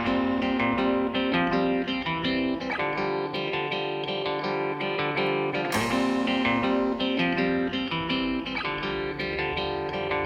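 Background music: a light guitar-led instrumental with plucked notes in a steady rhythm.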